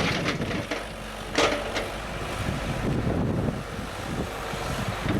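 Bulldozer's diesel engine running under load while digging, with a couple of sharp knocks, the loudest about a second and a half in.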